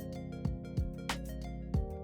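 Background music: a soft instrumental track with a steady beat and plucked notes.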